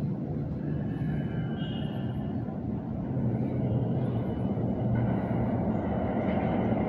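New York City subway train approaching through the tunnel: a steady low rumble that grows slowly louder.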